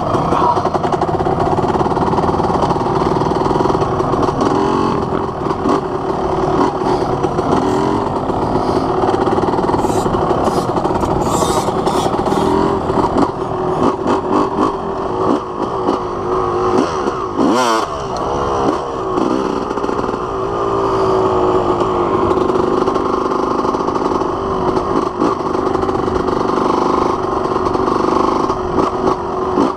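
Dirt bike engine running as the bike is ridden, its pitch rising and falling with the throttle, with a brief drop and glide in pitch about halfway through.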